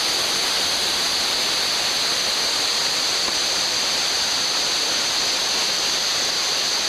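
Steady rushing water, an even high hiss that holds without change.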